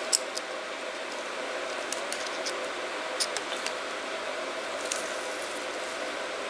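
A handful of light clicks and ticks from a pocket screwdriver working at the metal spool valve body of a 6.0 Powerstroke injector and its retaining clip, over a steady hiss and faint hum of room noise.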